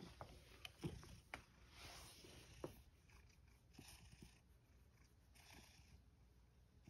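Very quiet handling sound: soft rustles and a few small clicks, bunched in the first few seconds, as a hand strokes a cat's fur.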